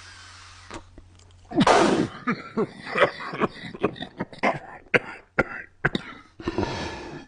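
A man in a hard coughing fit: one loud, harsh cough about a second and a half in, then a rapid string of a dozen or more short hacking coughs, two to three a second.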